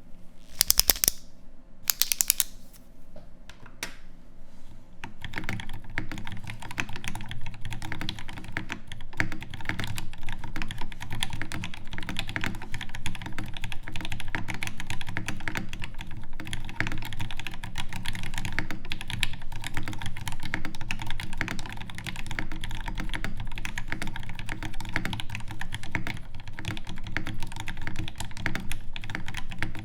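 Geist Prototype R1 custom mechanical keyboard being typed on: aluminium case, brass plate and weights, lubed and filmed Alpaca linear switches, GMK Bento keycaps. A few short separate bursts of keystrokes in the first seconds, then steady continuous typing from about five seconds in.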